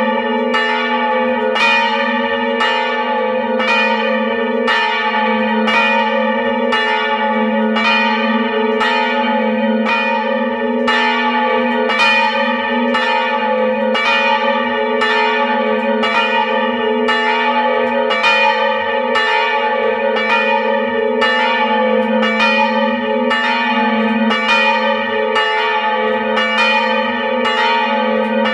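Two swinging church bells of about 450 kg and 380 kg, heard close up in the belfry, striking in a steady rhythm of about three strokes every two seconds. Each stroke rings on under the next, so the bells' tones overlap without a break.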